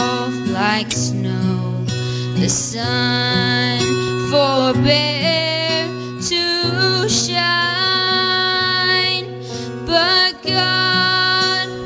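A woman singing a slow song into a microphone over instrumental accompaniment, with long held notes.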